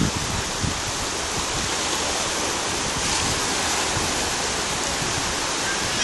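Ocean surf breaking and washing up on a sandy beach: a steady, even rush of water.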